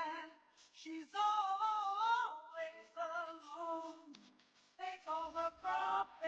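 Background music: a voice singing short melodic phrases with brief pauses between them.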